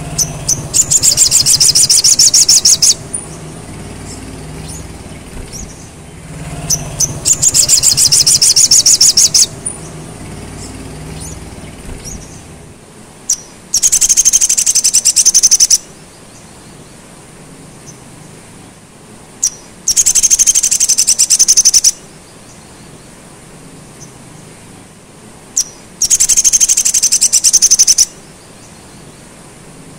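Male olive-backed sunbird singing: five loud, very high, rapid trills of about two seconds each, a few seconds apart, with short thin chips between them. Its song is filled with pelatuk sampit phrases.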